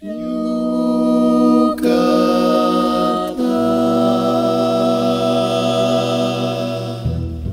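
Choir singing sustained chords a cappella, with no words. The chord changes twice in the first few seconds, and a lower bass note joins and holds beneath it.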